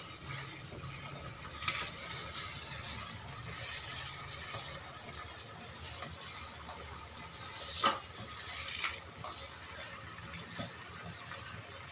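Chicken pieces with chopped onion and garlic frying in oil in a pan, a steady sizzle, while a spatula stirs them and scrapes the pan a few times, loudest about eight seconds in.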